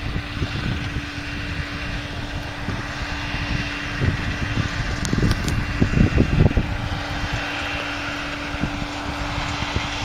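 New Holland VL660 grape harvester running steadily with a constant engine hum. Irregular low rumbles come and go over it, loudest about six seconds in.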